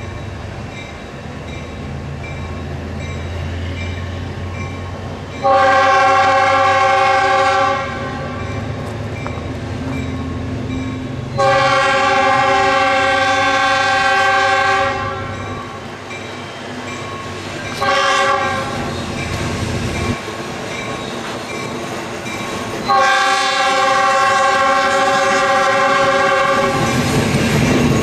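Diesel locomotive 51's air horn, several tones sounding together, blowing the grade-crossing signal of long, long, short, long as the engine approaches. Under it is a steady low diesel engine rumble, which swells into wheel and engine noise near the end as the locomotive reaches the crossing.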